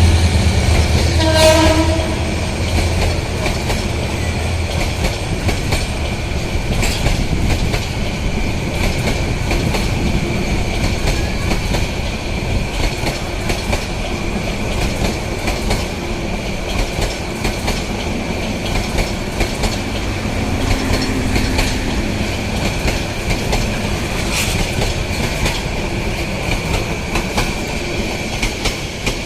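A Bangladesh Railway passenger train passing close by. The locomotive's low engine rumble fades in the first two seconds, and a brief horn note sounds about a second in. After that the coaches roll past with a steady rumble and the clickety-clack of wheels over rail joints.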